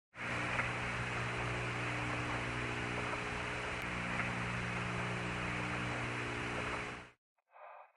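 Open radio channel hissing with a steady electrical hum for about seven seconds, then cutting off abruptly: static on the Apollo air-to-ground communications link with no one talking.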